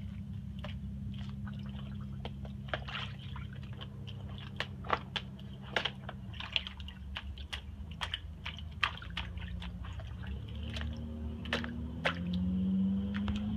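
A puppy splashing and moving about in shallow rainwater held in a plastic garbage can lid: irregular wet slaps, splashes and clicks, some louder than others, over a steady low hum.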